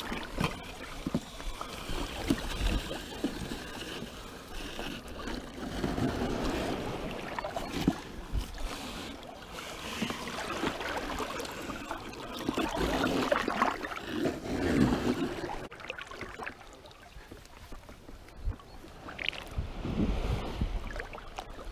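Sea water sloshing and swishing around people wading through the shallows as they haul a bait drag net, in uneven swells, with wind buffeting the microphone.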